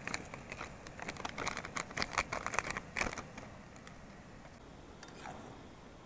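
Plastic soup-mix packet crinkling as it is shaken and tapped empty over a pan of water: a quick run of sharp crackly rustles over the first three seconds, then it goes quiet.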